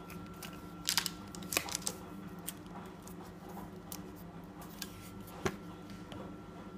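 Light handling sounds on a worktop: a few short clicks and rustles, clustered about a second in and again a little later, with one more near the end, over a steady background hum.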